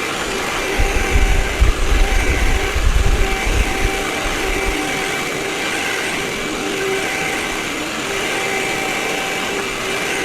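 Vacuum cleaner running steadily with a whine made of a few held tones. From about one to four and a half seconds in, low rumbling bumps sound under it.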